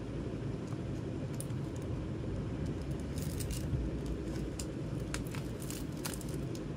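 Plastic shrink-wrap on a CD case being picked and scraped with a small pointed tool: scattered faint crinkles, ticks and short scratches over a steady low hum.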